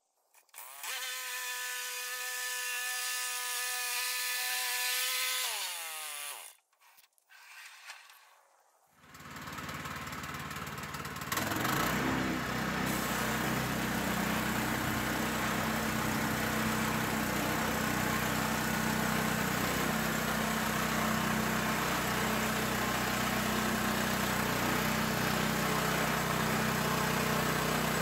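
Portable bandsaw sawmill engine starting about nine seconds in, stepping up in level around eleven seconds and then running steadily. Before it, a steady machine hum winds down in pitch and stops.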